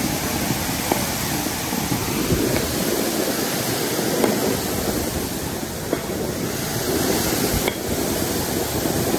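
Water gushing from a sheared-off fire hydrant: a steady, loud rushing spray, with a few faint sharp knocks.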